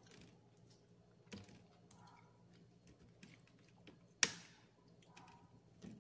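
Close-up eating sounds of a person chewing fish: scattered faint clicks and mouth noises, with one sharp, much louder click about four seconds in.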